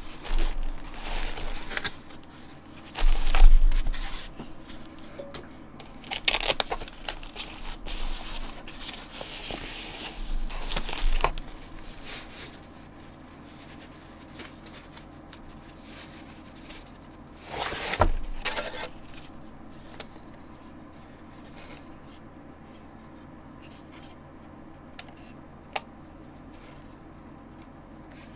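A thin white packing sheet being pulled off and handled, rustling and crinkling in irregular bursts through the first twenty seconds. It is quieter after that, with a few light clicks near the end.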